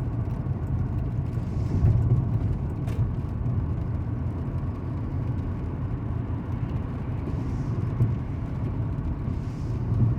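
Truck driving on the highway, heard from inside the cab: a steady low engine and road rumble.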